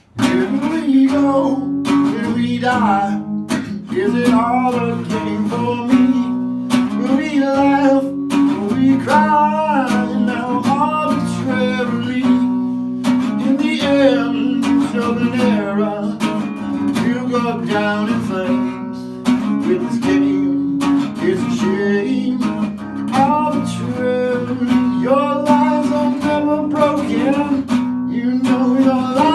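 Music: acoustic guitar, strummed and picked, carrying a melody.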